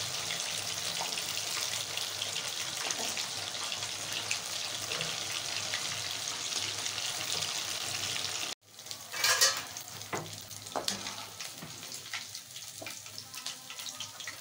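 Masala-coated fish pieces sizzling in hot oil in a kadai, a steady loud hiss of frying. Part way through the sound cuts off abruptly and comes back quieter, with a metal slotted spoon clinking and scraping against the pan as the fried pieces are turned and lifted.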